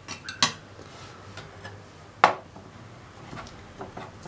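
Light clicks and knocks of tableware being handled on a table, with one sharper click about two seconds in.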